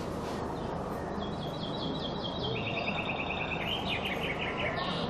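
A bird singing rapid trills of short repeated notes, several trains in a row, the later ones lower and the last falling in pitch, over a steady background noise with a low hum.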